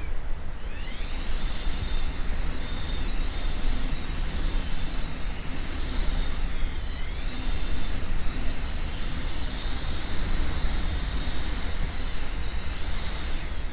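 Typhoon wind gusting hard: a steady low rumble with a high, shrill whistling that rises and falls as the gusts swell and ease.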